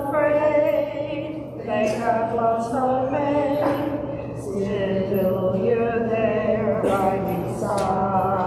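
Unaccompanied hymn singing led by a woman's voice, with slow, held notes.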